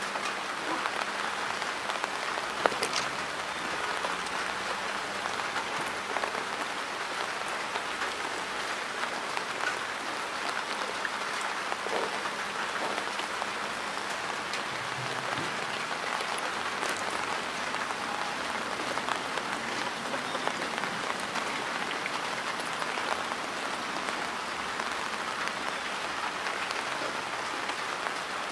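Steady rain falling on standing floodwater and wet grass: an even hiss with scattered louder drops.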